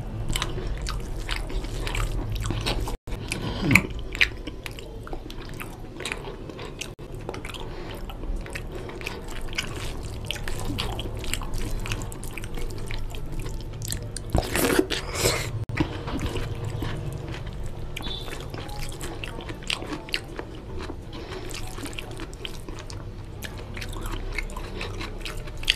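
A person chewing a mouthful of mutton biryani close to the microphone, with a steady run of small wet mouth clicks and smacks. There are louder mouth sounds about 4 seconds in and again around 15 seconds in.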